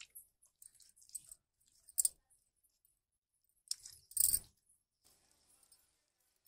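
Intermittent clinks and scrapes from handling goat head and legs during cleaning, with a louder knock about two seconds in and a heavier thud about four seconds in.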